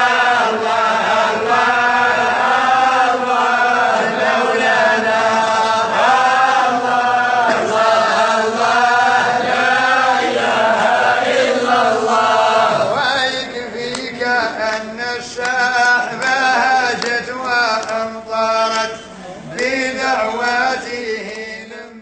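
A solo male voice chanting in long, held, wavering notes. About thirteen seconds in, the phrases turn shorter and broken, and the voice fades out at the very end.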